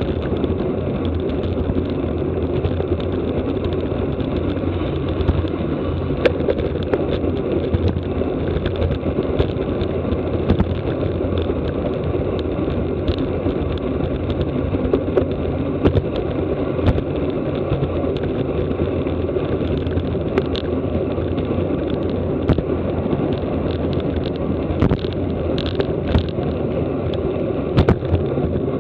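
Steady rush of wind buffeting the microphone of a camera riding on a road bicycle at racing speed, with scattered light clicks and ticks from the bike and the road.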